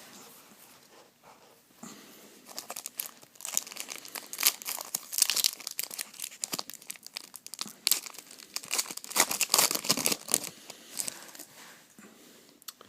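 Foil wrapper of a trading-card pack being torn open and crinkled. Dense crackling starts about two seconds in and dies away near the end.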